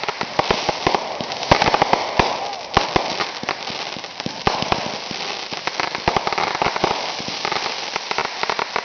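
Fireworks going off in quick succession: a dense, unbroken crackling and popping of many sharp little reports, from crackling stars bursting overhead.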